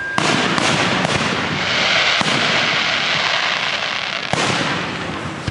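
Fireworks display: a run of sharp bangs from bursting shells, the first just after the start and the last about four seconds in, over a dense rushing crackle that swells about two seconds in.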